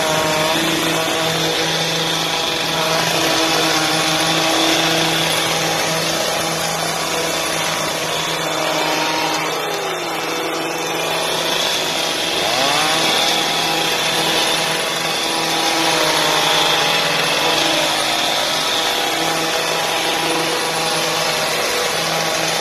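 Small two-stroke engine of a handheld petrol olive harvester running steadily at high speed while its pole-mounted head shakes olives from the tree.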